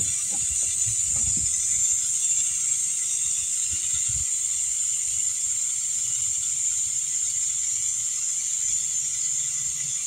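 Air hissing steadily out of a 19-inch tire as it is deflated, with a few dull knocks in the first second or two and again around four seconds in.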